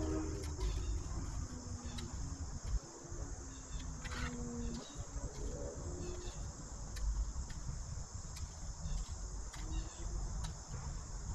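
Steady high insect chorus, typical of crickets, over a low rumble with a few wavering lower tones.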